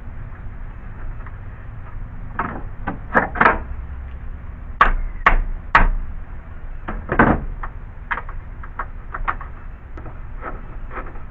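Hammer blows on the steel radiator support cross member, straightening a dent. An irregular run of strikes, the heaviest in the middle, with lighter taps before and after.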